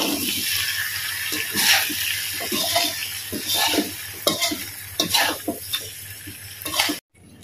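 Chicken, onions and chillies sizzling in a wok, the hiss slowly fading with the heat switched off, while a spatula scrapes and knocks against the wok as the dish is stirred. The sound cuts off suddenly near the end.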